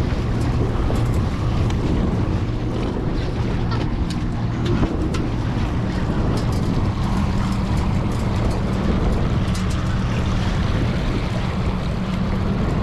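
Boat engine running steadily in gear at trolling speed, a low even hum, with wind on the microphone and water noise over it.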